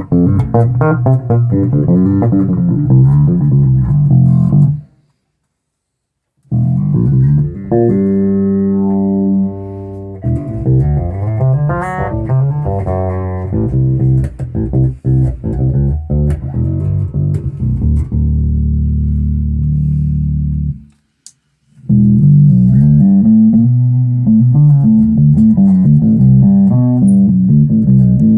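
Zoot Wal-a-Like electric bass played through a Gallien-Krueger amp and a 1x12 cabinet, in phrases of plucked notes. There are ringing chord-like tones about eight seconds in, and a long held low note that cuts off about three-quarters of the way through. The sound stops dead twice, briefly each time.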